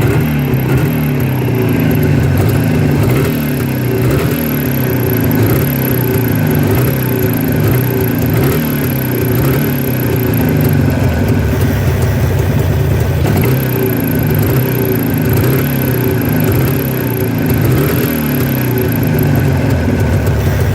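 Jawa 638 two-stroke twin motorcycle engine running at a steady, slightly wavering idle. A thin, very high whistle comes and goes over the engine note.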